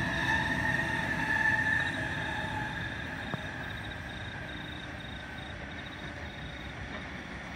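Double-deck electric train running past and drawing away, its motors' steady whine fading over the first few seconds over a low rumble.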